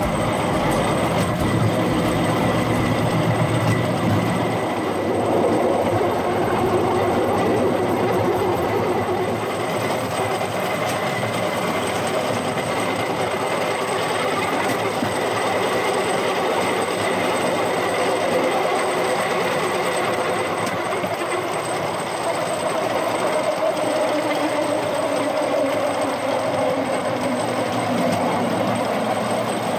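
Rail-mounted golf cart rolling along a railway track, its wheels running steadily on the rails, heard from on board.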